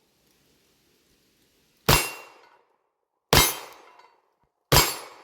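Three pistol shots from a Glock 19-pattern 9 mm handgun, evenly spaced about a second and a half apart, starting about two seconds in, each followed by a short ringing tail.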